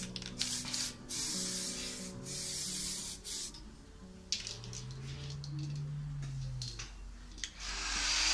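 Compressed-air paint spray gun hissing in a series of short bursts as it coats a repaired bumper area. Near the end a steady blowing hiss starts up: a blower driving air over the fresh paint to evaporate the solvent.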